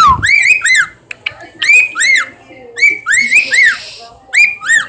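Pet bird giving wolf whistles over and over: about four two-note whistles, each a rising note followed by a rising-then-falling one.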